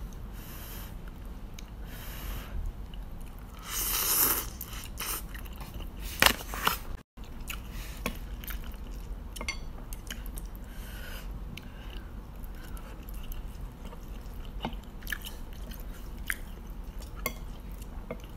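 A person eating fried instant noodles with chopsticks: chewing and slurping, with a louder slurp about four seconds in and many small clicks of chopsticks against the plate.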